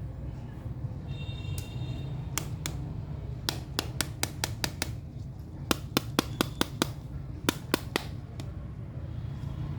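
A series of sharp clicks and taps in quick runs of several a second, over a steady low hum.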